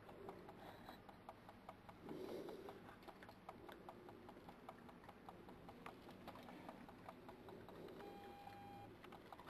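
Faint, irregular small clicks and crunches of a badger chewing food on the ground. Near the end a short steady beep sounds for about a second.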